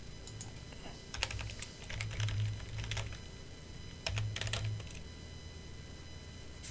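Typing on a computer keyboard: a run of keystrokes for about two seconds, a short pause, then a second brief run about four seconds in.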